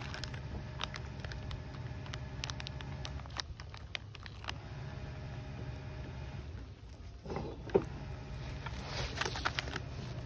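Light plastic snack-wrapper crinkling and scattered small clicks and rustles over a steady low mechanical hum, with one brief louder sound about three quarters of the way through.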